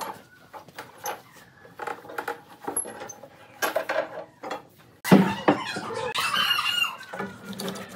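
Workshop handling noise: scattered metallic clinks and knocks from steel pipe clamps being adjusted on a glued-up wooden tabletop, then a loud thump about five seconds in as a long board is laid down on the bench, followed by busier knocking and scraping.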